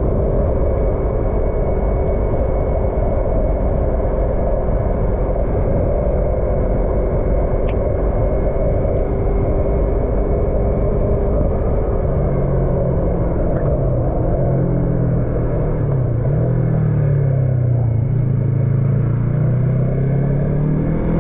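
Yamaha MT-03's parallel-twin engine running under way, heard from the rider's seat over steady wind and road rush. About twelve seconds in, the engine note drops to a lower pitch and wavers as the revs fall, then climbs again near the end.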